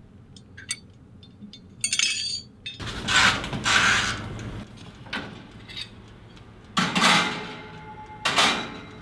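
A countertop toaster oven being set and loaded: small metal and glass clinks and clicks, then several short rushing scrapes as its dials are turned and the rack and door are handled.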